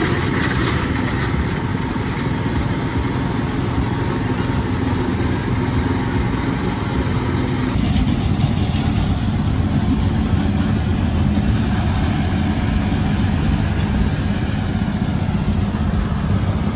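A small engine idling steadily, a continuous low hum that gets a little louder after about eight seconds.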